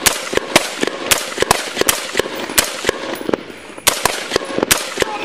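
Police gunfire: a rapid, irregular volley of about twenty shots from several officers' guns, roughly four a second, overlapping at times, stopping just before the end.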